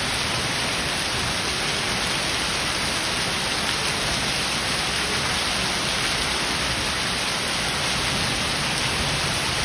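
Heavy rain falling on hail-strewn paving: a dense, steady hiss with no break.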